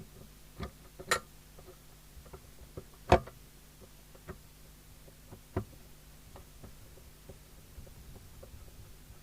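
Clicks and knocks of screws and a metal mounting bracket being handled and fitted to a CB radio's case, with a sharp knock about three seconds in and lighter ticks after, over a faint steady hum.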